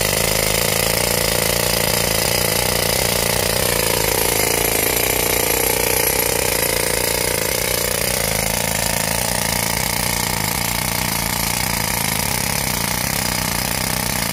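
Hand-held pneumatic rock drill hammering as it drills a hole into rock: a loud, fast, even hammering that runs without a break.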